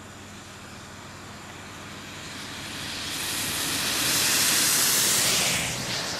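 A vehicle passing on wet pavement: the hiss of tyres on the water-covered road swells over a few seconds, peaks, and fades.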